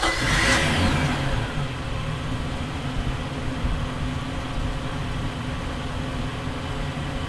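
Volvo Penta 5.0L OSI V8 sterndrive engine idling steadily, heard through the open engine hatch, just after starting. It is a little louder in the first second, then settles to an even idle.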